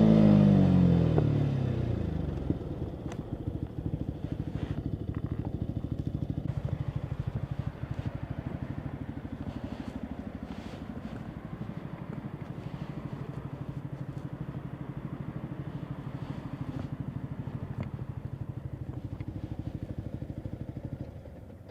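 Yamaha MT-125's single-cylinder 125 cc four-stroke engine through a full Akrapovic exhaust, revs falling over the first couple of seconds as the bike slows, then idling steadily. The engine sound stops just before the end.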